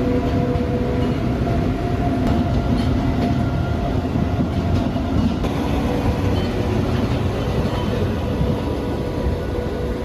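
Passenger express train moving off, heard from on board: a steady, loud rumble of the coaches running on the track, with a few faint held tones above it.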